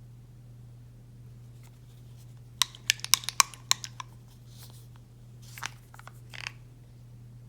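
Small objects being handled at close range: a quick run of sharp clicks and taps about midway, then a few soft rustles, over a steady low hum.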